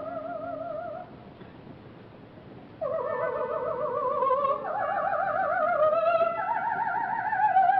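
Coloratura soprano singing an opera aria on a 1958 live recording. A held note with wide vibrato ends about a second in. After a short pause she sings a phrase of held notes that step upward.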